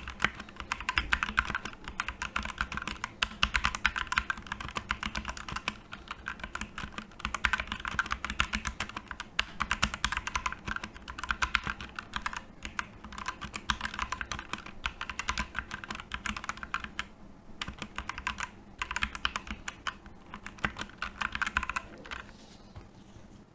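Fast, continuous typing on a Digital Alliance Meca Air mechanical keyboard with red linear switches, picked up close to the microphone, with a few brief pauses; the typing stops near the end.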